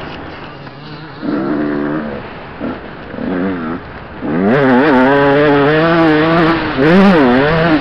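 Dirt bike engine revving: two short throttle bursts, then a long pull with the pitch rising and falling as the rider climbs.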